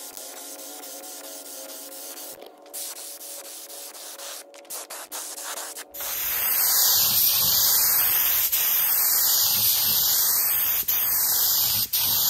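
Gravity-feed HVLP spray gun hissing as epoxy primer is sprayed onto a bare truck hood. About halfway through the hiss becomes much louder and swishes up and down every second or two.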